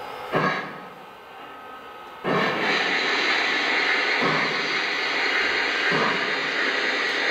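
O gauge model train's locomotive sound running as the train creeps forward. A short burst comes just after the start, then a steady hiss switches on suddenly about two seconds in, with a soft low pulse every couple of seconds.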